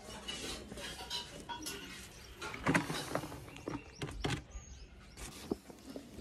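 Handling noises as cement is fetched: a steel bowl clinks and scrapes against a metal bucket and a woven plastic cement sack rustles. A few sharp knocks come a little under halfway through.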